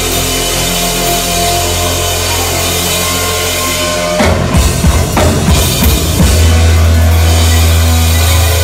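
Rock band playing live, with the drum kit heard close up over held bass and guitar notes. About four seconds in comes a run of heavy drum hits, followed by a loud sustained low note.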